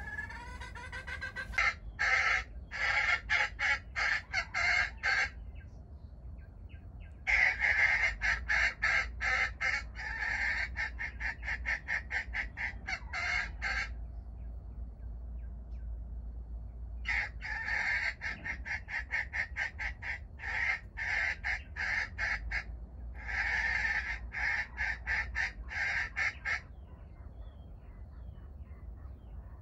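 Junglefowl calling in long runs of rapid clucks, about five a second, in four bouts with short pauses between them.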